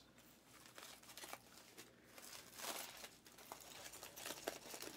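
Faint rustling and crinkling of handled packaging, with a few soft clicks and scrapes.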